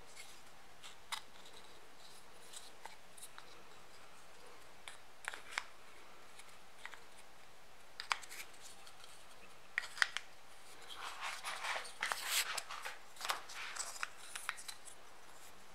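Pieces of a small mini-katana display stand clicking and scraping as they are handled and fitted together: scattered light clicks, then a few seconds of denser rustling and scraping near the end.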